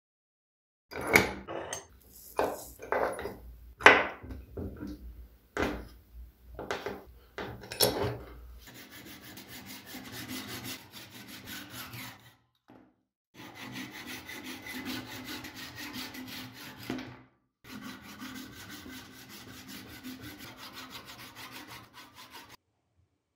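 A string of loud knocks on wood, then a hand saw cutting a wooden block clamped in a bench vise: steady sawing that stops briefly twice.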